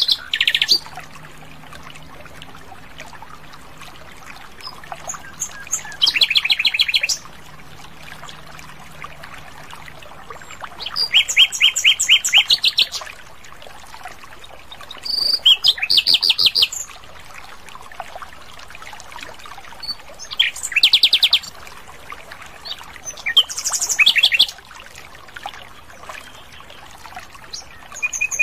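Common nightingale singing: short phrases of fast repeated notes and rattling trills, each lasting a second or two, with pauses of a few seconds between them.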